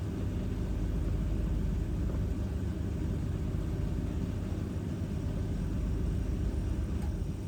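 Bush TDHP9KG2025 heat pump tumble dryer running mid-cycle, its drum turning with a steady low running sound.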